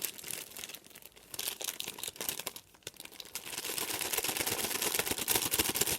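Food packaging being handled and crinkled, with irregular crackles that grow denser and louder about halfway through.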